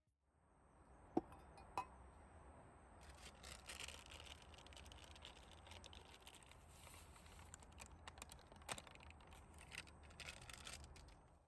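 Two light clinks, with a brief ring, about a second apart. Then several seconds of soft rustling with small crackling clicks, as of things being handled.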